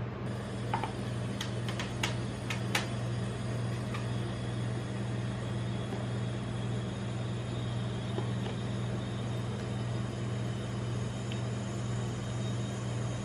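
Steady low hum of a rolled-ice-cream cold-plate machine's refrigeration compressor, with a few light clicks of a metal spatula in the first three seconds.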